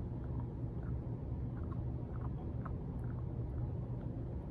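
A puppy gnawing on small marrowbones: faint, irregular clicks and crunches from the chewing, over a steady low rumble.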